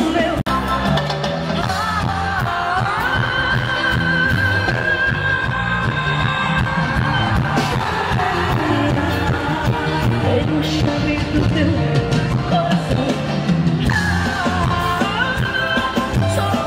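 Live band music with a woman singing lead into a microphone, holding long notes over a steady bass-and-drum beat. The sound jumps at an edit about half a second in.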